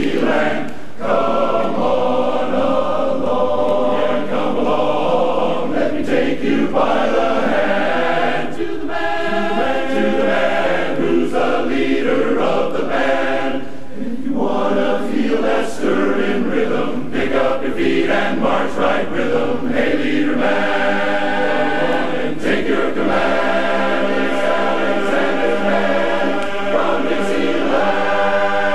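Large men's barbershop chorus singing in close harmony.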